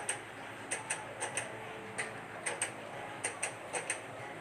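Light, sharp ticks coming unevenly, often in pairs, about two or three a second, over a faint steady background.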